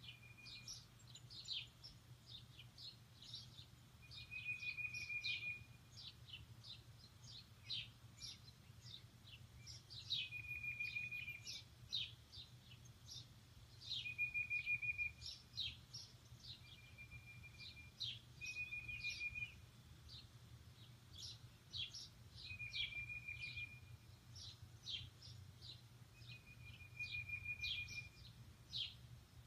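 Birds singing: a busy run of short high chirps, with a brief trilled phrase about a second long returning roughly every four seconds. A faint low hum runs underneath.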